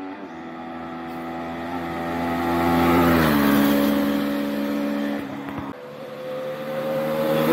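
Motorcycle engine passing by: its note grows louder to a peak about three seconds in, then drops in pitch as it goes past. After a short break another engine note comes in, rising in pitch.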